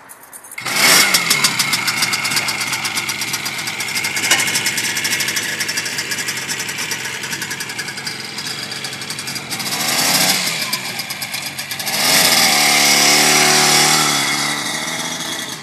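1953 Adler M250's two-stroke twin engine kick-started, catching within the first second, then running with blips of the throttle. Around twelve seconds in it revs up and pulls away under load, then eases off.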